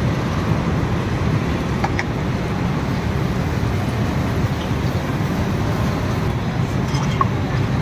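Steady low rumble of background noise, even in level throughout, with a few faint light clinks about two seconds in and near the end.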